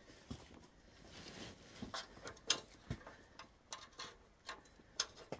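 Light, irregular clicks and taps of an exhaust pipe flange and its bolts being handled and fitted together by hand, with a soft thump near the middle.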